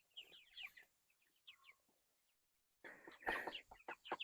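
Pastured meat chickens peeping and clucking in short, falling cheeps, faint and scattered at first, then louder and busier about three seconds in, with a brief rustle.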